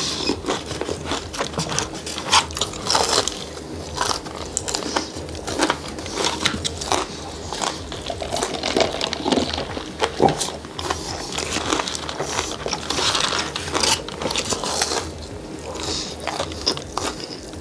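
Close-miked eating of a fried chicken tender: biting and chewing, with many short crackling clicks.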